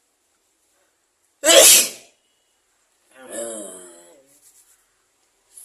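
A person sneezing once, loudly and sharply, about a second and a half in, after a silent build-up. A second later comes a shorter voiced sound with a falling pitch.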